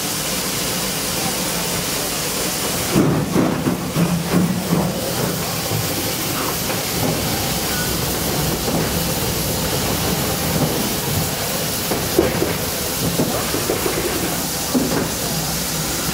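Steady hiss of steam escaping from a Pm36 Pacific steam locomotive standing on a turntable. A spell of irregular clanking and knocks comes about three seconds in.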